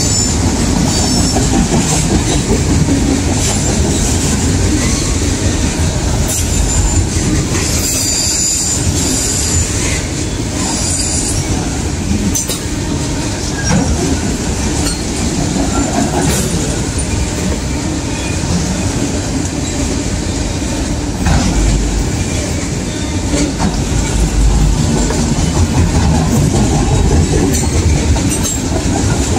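A train's cars rolling past: a steady rumble of steel wheels on rail, with scattered clicks and brief high-pitched wheel squeals.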